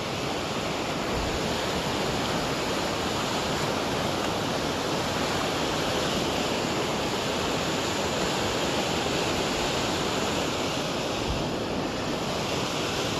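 Steady, even rushing noise with no distinct sounds standing out of it.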